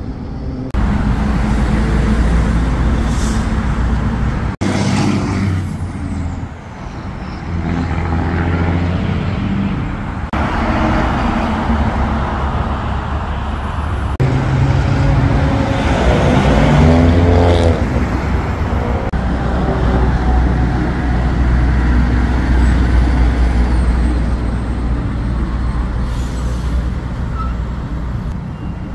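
Road traffic: trucks and cars driving past with a steady deep engine drone. The sound changes abruptly several times in the first half, and about halfway through one engine's pitch rises and falls.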